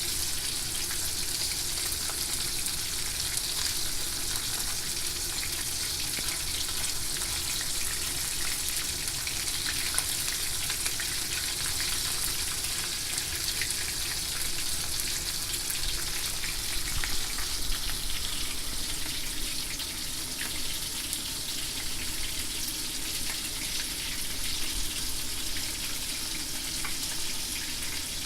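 Horse mackerel frying in hot oil for nanbanzuke: a steady sizzle with scattered small crackles.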